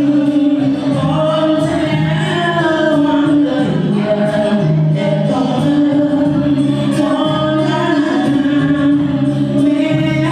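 Vocal music: singing, apparently by a group of voices, over a steady instrumental accompaniment.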